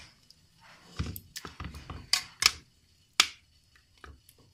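Metal spoon mashing cooked vegetables inside a pressure cooker: about six sharp taps of the spoon against the pot, with softer scraping between them.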